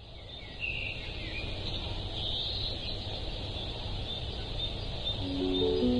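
Birds chirping over a steady low background rumble, fading in from silence. Soft music notes come in near the end.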